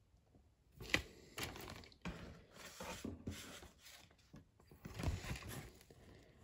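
Plastic model-kit parts being handled: a sharp click about a second in, then irregular rustling and light clicking of plastic parts trees and bags.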